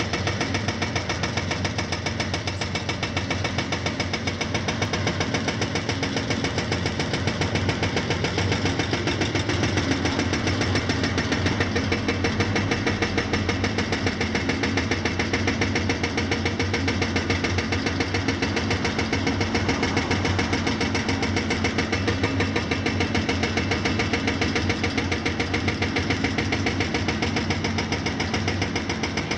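Hydraulic breaker on a Hitachi ZX490LCH excavator, hammering concrete in a rapid, steady rhythm without a break, over the excavators' diesel engines running under load.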